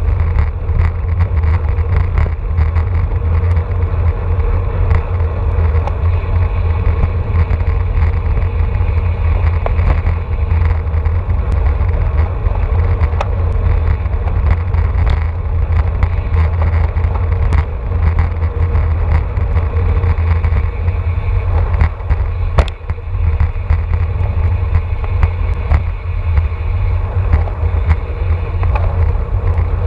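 Heavy wind rumble on the microphone of a road bike riding in a racing pack at about 21 to 27 mph, over steady tyre and road noise, with scattered short clicks and ticks.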